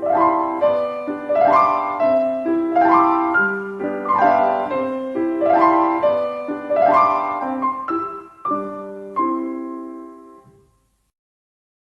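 Solo piano playing a slow introduction of repeated rising arpeggios over held bass notes. It rings out and stops near the end, leaving silence.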